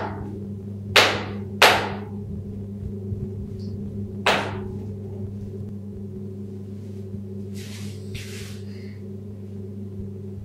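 Short-toed snake eagle feeding on a snake on a tiled floor: four sharp knocks that ring briefly off the tiles, three close together at the start and one about four seconds in, then two softer rustles near the end, over a steady low hum.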